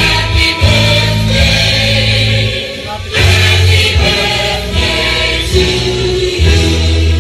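Music with group singing over a deep, steady bass line.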